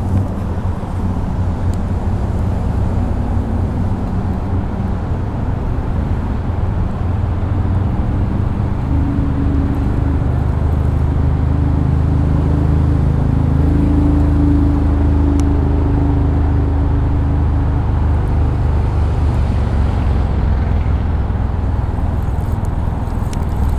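Steady road traffic rumble from passing vehicles, with a heavier engine drone building and fading away around the middle.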